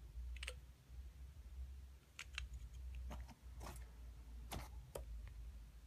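Faint, scattered clicks and light knocks of rifle-kit parts and packaging being handled, about eight in all, over a low rumble.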